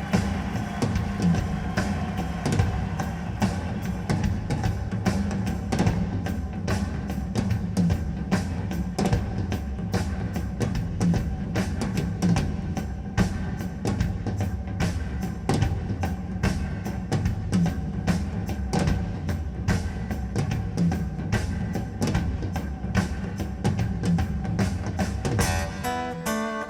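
Music with a steady drum-kit beat and heavy bass played back through a DOOGEHiFi HT-1 tower speaker. Near the end the drums give way to picked guitar notes.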